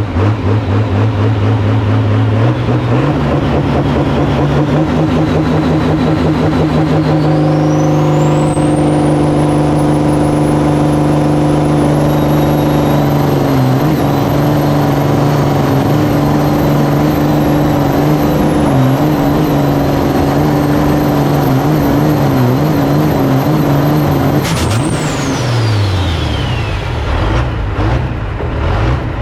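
Pulling tractor engine idling with a pulsing beat, then revved up and held for about fifteen seconds with a high whine climbing in and holding above it. Near the end the whine and revs fall away and it settles back to idle.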